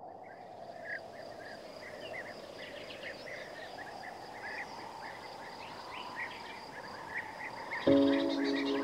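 Rural nature ambience: birds chirping in short repeated calls over a steady high drone of insects. Music enters near the end with loud held tones.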